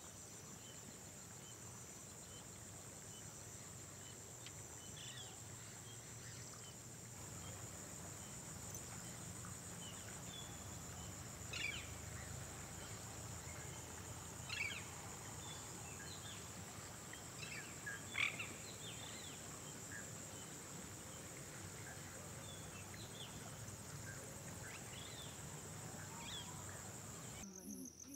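Faint outdoor nature ambience: a steady high-pitched insect drone over a low rumble, with a few short bird calls, the loudest about eighteen seconds in. Near the end it changes to pulsing cricket chirps.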